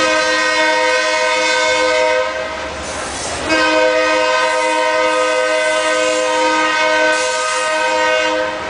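Diesel locomotive air horn sounding a chord of several notes in two blasts: a short one of about two seconds, then a longer one of about five seconds after a brief break. Underneath it runs the steady rumble and clatter of freight cars rolling past on the track.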